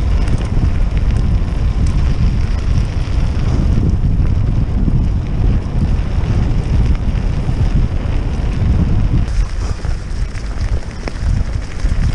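Heavy wind buffeting on the microphone of a fast-moving e-bike, with its tyres rumbling over a gravel track and a few small clicks from loose stones.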